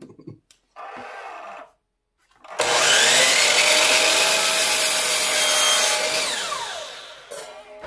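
Power miter saw spinning up and cutting through a wooden 1x6 trim board. After a few seconds it is released and winds down, its whine falling in pitch as it fades. A brief rubbing sound comes about a second in.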